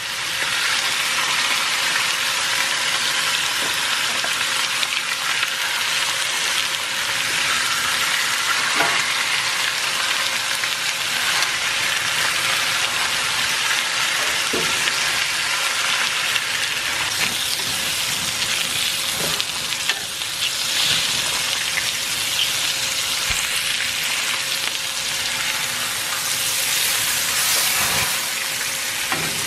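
Bacon sizzling as it fries on a hot seasoned cast-iron griddle, a dense steady crackle with a few sharp pops, over a faint steady hum.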